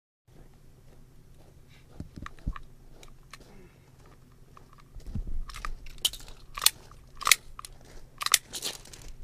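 A series of sharp clicks, crunches and knocks over a low steady hum, growing louder and more frequent in the second half.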